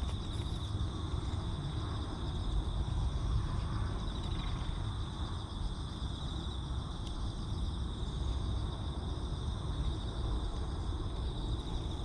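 Outdoor ambience of insects, crickets or similar, trilling steadily in a high band, over a low, even rumble.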